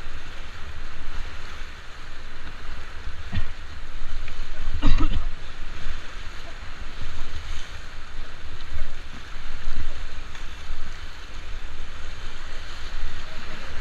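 Rushing river water around a paddled whitewater raft, with wind buffeting the microphone. A brief shout about five seconds in.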